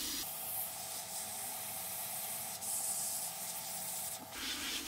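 Heat gun blowing hot air at 300 °C onto heat-shrink tubing: a steady airflow hiss with a thin steady whine that stops shortly before the end.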